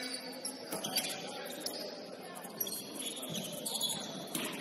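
Basketball shoes squeaking on a hardwood gym court in short high chirps over a murmur of voices, with a sharp knock about a second in.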